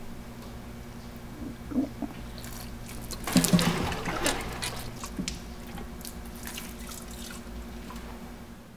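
Water dripping and splashing lightly in a toilet bowl, with a cluster of small splashes about three and a half seconds in, over a low steady hum.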